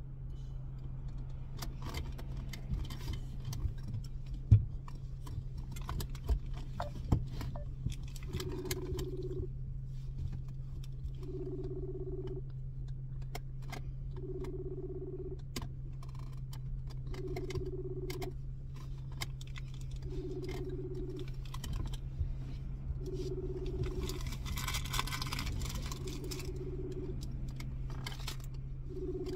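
Smartphone ringing out on an outgoing call: a low ringback tone about a second long that repeats every three seconds, starting about eight seconds in. Before it come scattered light taps and clicks, and a steady low hum runs underneath.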